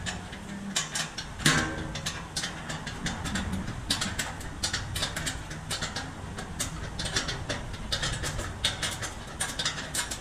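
Metalwork on a stainless steel silencer shell: irregular sharp metallic ticks and taps, several a second, over a low steady workshop rumble, with one louder ringing clank about one and a half seconds in.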